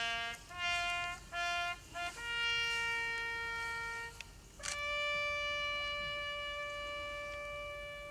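A bugle call: a few short notes and one longer note, then a sharply tongued higher note held for about three and a half seconds.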